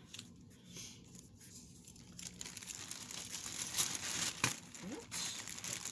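Thin plastic poly bag crinkling and rustling as bangle bracelets are pushed into it, growing louder about two seconds in, with a couple of sharp clicks near the end.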